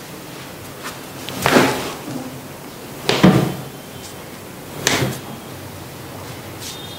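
Three sudden thuds about a second and a half apart as a chiropractor tugs sharply on a lying patient's leg, gripped at the ankle, in a leg-traction adjustment; the second is the loudest.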